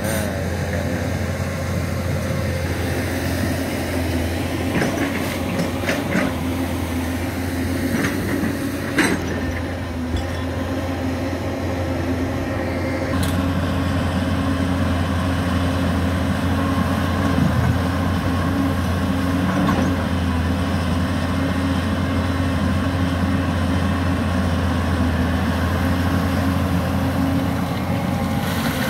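Hyundai crawler excavator's diesel engine running steadily under digging work, with a few sharp knocks of stone in the first half.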